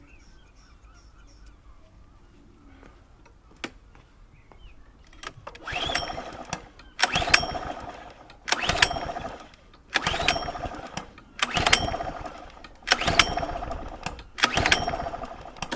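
Small petrol lawnmower engine being pull-started again and again: about seven pulls of the recoil starter roughly every second and a half, each a brief burst of cranking that fades away.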